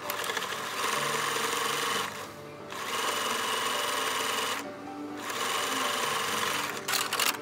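Household electric sewing machine stitching in three runs of about two seconds each, with short pauses between them, then a few clicks near the end.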